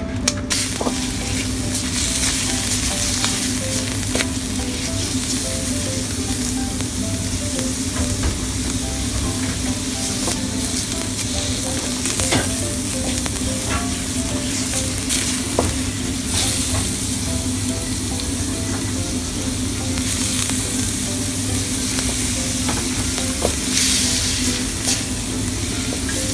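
Ground pork sizzling steadily in hot olive oil in a metal wok, stirred and broken up with a wooden spatula that scrapes and taps the pan now and then.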